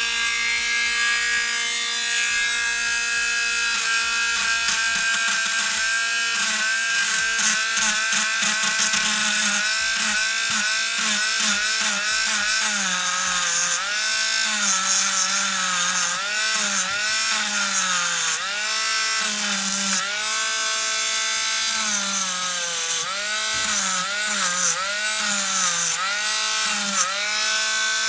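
A small electric rotary tool whines steadily as it grinds a corner off the slide release stop of a Sar 9 compact pistol. Its pitch dips again and again as the bit is pressed onto the metal, more often in the second half.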